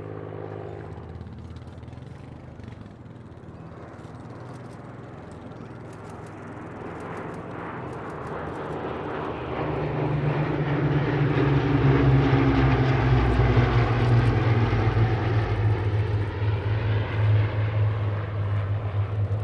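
Formation of Hawker Hurricanes' Rolls-Royce Merlin V12 piston engines and propellers running, faint at first, then building to a loud pass from about ten seconds in, the pitch falling as the aircraft go by.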